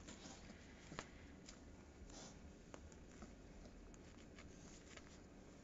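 Near silence with faint rustling and a few soft clicks as a hand strokes a puppy on a blanket.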